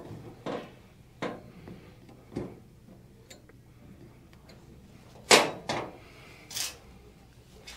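Scattered clicks and knocks of a hand pick and a ribbed plastic shade roller tube being handled on a workbench while probing for a spring collar's hole: a few light taps in the first couple of seconds, then three louder knocks between about five and seven seconds in, the first the loudest.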